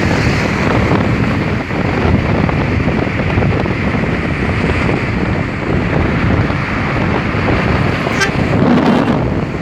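Steady rush of wind and road noise from a car travelling at highway speed, with wind buffeting the microphone.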